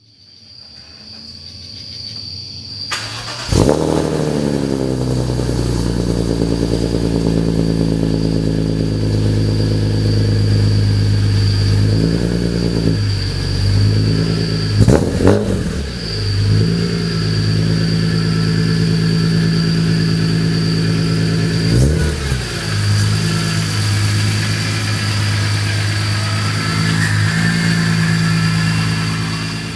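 BMW M3 with a Supersprint Race catless exhaust starting up about three seconds in with a quick flare of revs, then idling, with short throttle blips a few times. A steady high whine runs alongside the engine.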